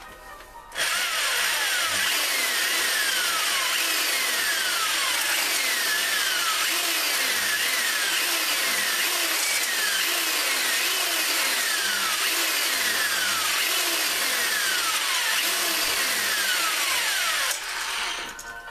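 Electric drill spinning a stone cylinder hone inside the Craftsman tiller engine's cylinder bore, with a gritty grinding and repeated falling squeals as the hone is stroked up and down; it is breaking up the glaze and putting crosshatch lines back in the cylinder wall. It starts about a second in and stops shortly before the end.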